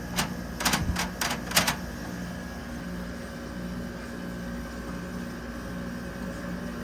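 Vintage Carrier International window air conditioner running on low cool: a steady hum from its compressor and fan with a faint high whine. It starts with a quick run of about seven sharp clicks in under two seconds.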